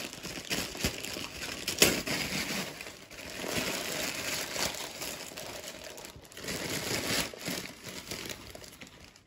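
Packaging crinkling and rustling as it is unwrapped by hand, with a sharper crackle about two seconds in.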